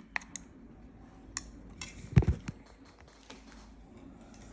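Scattered light clinks and taps of dishes and cutlery, with a louder knock a little after two seconds in.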